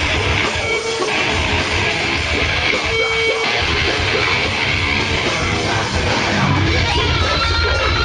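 A heavy metal band playing live, with distorted electric guitar over a dense, loud wall of sound.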